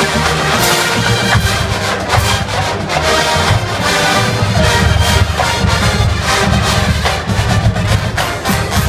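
College marching band playing a brass-and-drumline arrangement, with horns over steady drum hits.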